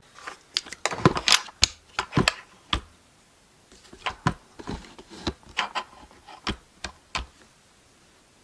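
Handling noise from a camera being set up and positioned at close range: a quick run of sharp knocks and clicks with fabric rubbing against it, in two bursts, stopping about a second before the end.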